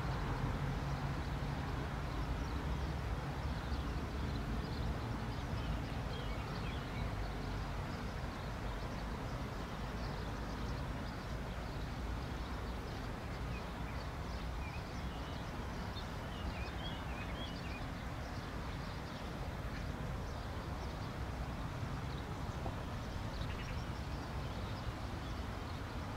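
Distant low rumble of an Airbus A320-214's CFM56 jet engines at taxi power, steady throughout. Small birds chirp faintly over it.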